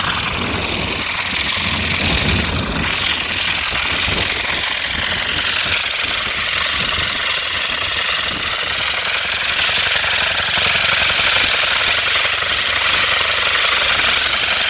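Rocket engines on the rotor tips of the Intora rocket helicopter firing in flight: a loud, steady rushing hiss with a rapid beat from the spinning rotor, growing a little louder toward the end as the machine comes closer.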